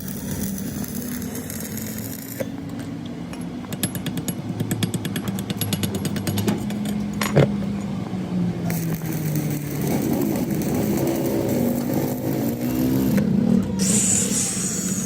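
Workshop machinery noise: an engine runs steadily underneath while a power tool hammers rapidly for about six seconds, starting a few seconds in.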